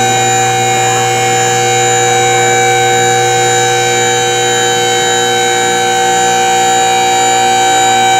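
Electric-hydraulic scissor lift's pump motor running, a steady whine with a low hum beneath it, as it raises a pickup truck.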